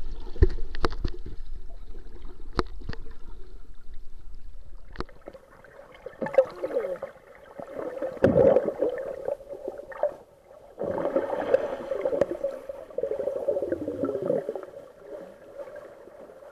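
Underwater sound: a few low knocks in the first seconds, then a steady hum broken by four bursts of bubbling from exhaled air.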